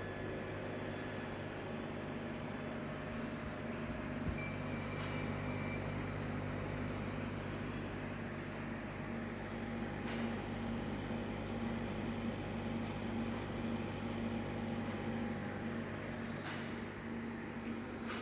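KAMACH 6090 ULTRA CO2 laser cutting machine running a test job: a steady mechanical hum with a low tone that pulses on and off, and a few faint clicks.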